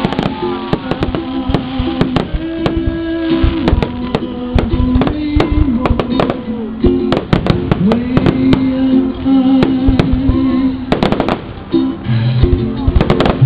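Fireworks shells bursting and crackling in rapid, irregular succession, over loud music with sustained pitched tones. The bangs come thickest near the end.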